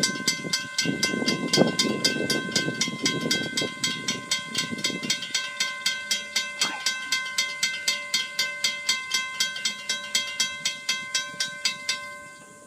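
Railroad crossing warning bell dinging rapidly and steadily, about four strikes a second, while the crossing gates come down. It stops about twelve seconds in, once the gate arms are fully lowered. A low rushing noise runs under the bell for the first few seconds.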